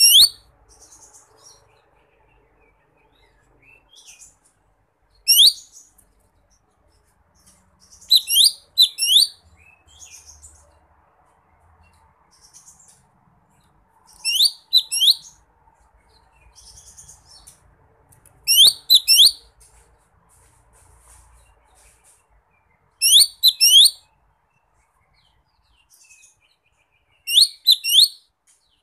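Lesser green leafbird (cucak ijo mini) calling: sharp, high chirping notes in bursts of two or three quick notes, repeated about every four to five seconds, with softer chirps in between. It is the call this bird uses to challenge a rival.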